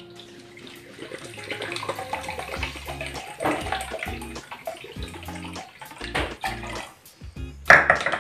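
Sake poured from a bottle into a small bowl and into a pot of broth, a steady rush of liquid. A loud knock comes near the end.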